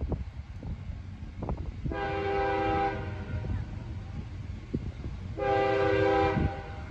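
Distant CSX freight locomotive's air horn sounding two long chord blasts, about a second each and a few seconds apart: the opening of a grade-crossing signal. A low rumble runs underneath.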